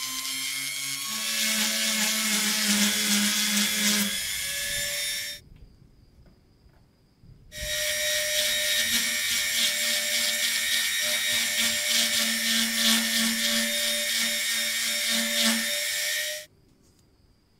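Handheld rotary tool with a sanding drum whining steadily as it sands a small rusty knurled metal wheel held in a vise. It runs for about five seconds, stops for about two, then starts again and runs for about nine seconds before stopping.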